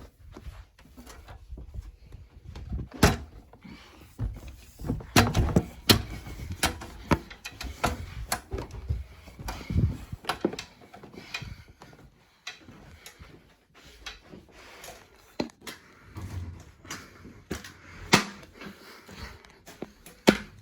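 Irregular knocks, clunks and rustles of things being handled and moved, with a few sharper bangs about three, five to six, and eighteen seconds in. No alarm is sounding.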